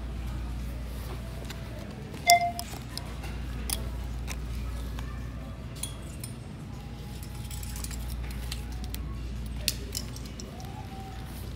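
Metal hardware of a zip wallet and the handbags around it clinking and rattling as they are handled on a hanging rack, with one sharp, ringing clink about two seconds in and a few lighter clicks after it. A steady low hum runs underneath.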